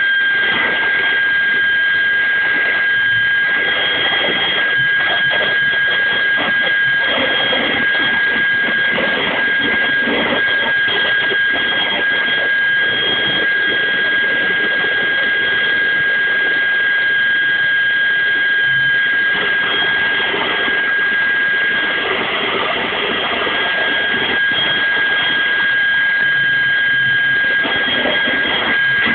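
Small experimental gas turbine engine running at steady speed: a loud rushing noise with a constant high-pitched whine on top.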